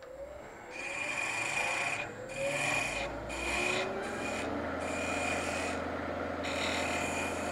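A quarter-inch square scraper cutting inside the centre hole of a wooden knob spinning on a wood lathe, deepening the bore: a dry scraping in about six passes with short breaks. A low hum from the lathe runs under the later passes.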